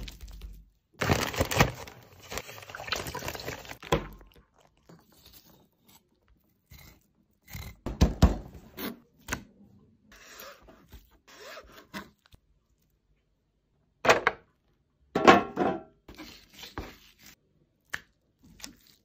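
A knife cutting and scraping through a whole coral grouper on a cutting board as it is filleted and skinned. The sound comes as separate scraping strokes with short pauses between them, the longest stroke lasting about three seconds near the start.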